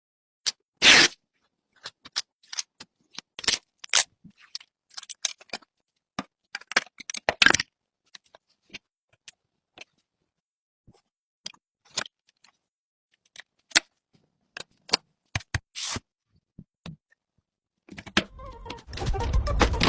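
Computer parts being handled during a PC build: scattered short clicks, scrapes and rustles with gaps between them. Near the end comes a louder, continuous stretch of rustling with a low rumble.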